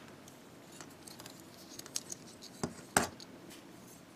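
Small hard-plastic parts of a Bandai G-Frame Duel Gundam Assault Shroud figure being handled and fitted together: light clicks and scrapes, with two sharper clicks close together about three seconds in, the second the loudest.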